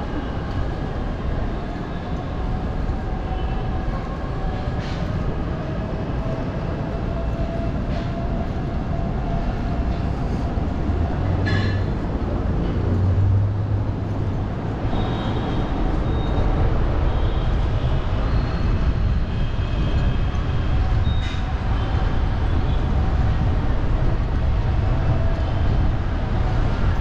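City street ambience: a steady low rumble of traffic and engines with a faint hum, getting a little louder in the second half.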